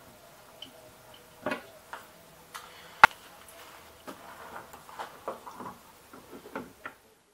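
Scattered small clicks and knocks of metal tap parts and tools being handled at a stainless steel kitchen sink. The sharpest click comes about three seconds in, and a run of lighter taps follows.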